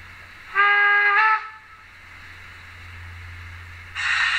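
Sound decoder of a Roco H0 model of the DB class 86 steam locomotive playing a short steam whistle of under a second, which steps slightly up in pitch just before it stops. About four seconds in, a steady hiss of escaping steam starts.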